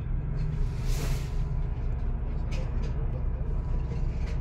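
Steady low drone of a ship's engine and machinery, with a few short hissing bursts over it.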